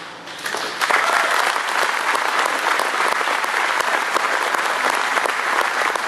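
Audience applauding. The clapping builds up over the first second, then holds steady.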